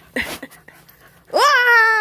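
A short burst of noise, then about 1.3 seconds in a loud, high-pitched, drawn-out wailing cry that rises and then slowly falls in pitch.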